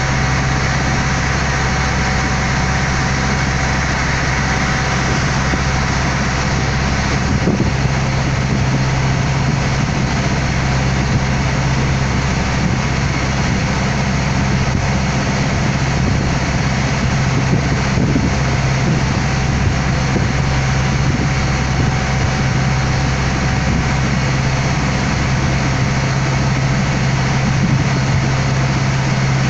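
A water taxi's engine running steadily under way, a constant low hum, with water rushing along the hull.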